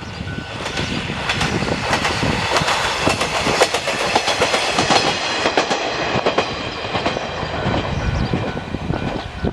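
Diesel railcar passing close by, its wheels clattering in quick clicks over the rail joints; the sound builds about a second in and eases a little near the end.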